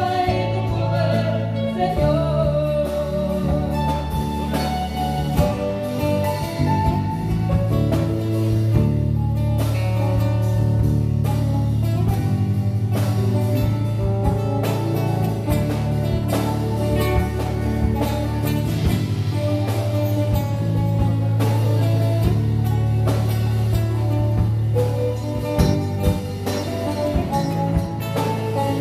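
Electronic keyboard playing an instrumental passage of a ballad, with a steady backing beat and sustained bass, heard live in a large reverberant church.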